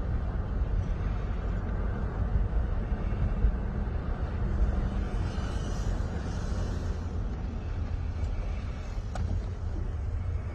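Road and wind noise inside a moving car, picked up on a phone: a steady low rumble.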